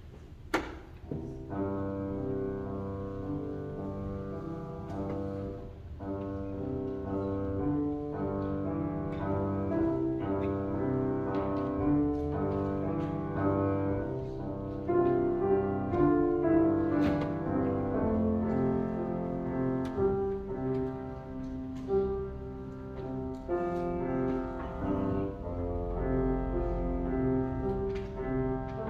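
Grand piano played solo: notes and chords ringing and overlapping, changing every second or two. A single sharp click sounds just before the playing starts.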